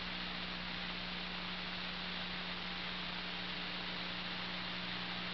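Steady electrical hum under a constant hiss: the background of an open radio or intercom audio channel between transmissions.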